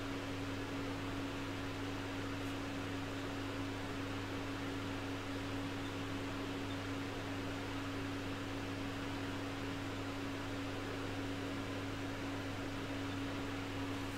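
A steady machine-like hum with one constant tone and an even hiss, unchanging throughout, with no handling clicks or knocks.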